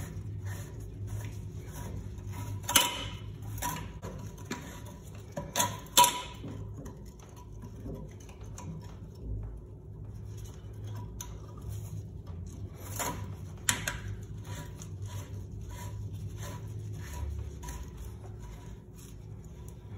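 Chrome metal parts of a Sloan toilet flush valve clicking and clinking as the couplings and nuts are turned and seated by hand, with a few louder sharp metal clacks.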